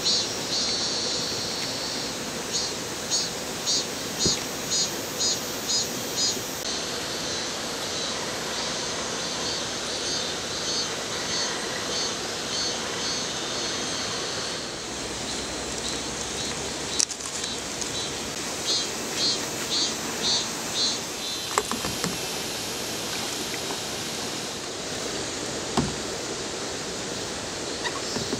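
Steady rush of flowing river water. Over it, a high chirping call repeats about twice a second in several short runs, and there are a few sharp knocks.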